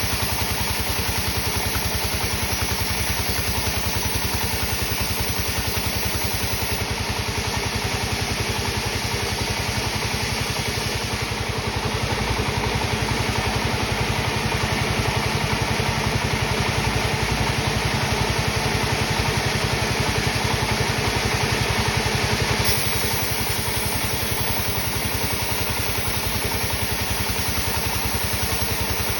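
Sawmill machinery running steadily with a fast, even engine-like pulse. From about seven seconds in until about twenty-three seconds in, the sound is slightly louder and brighter.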